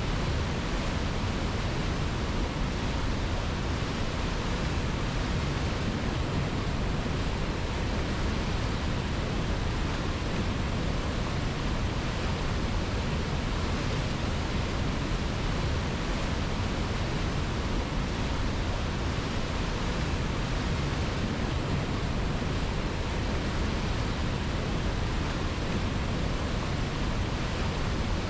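Steady rushing of a river, an even, unchanging wash of water noise with no distinct splashes.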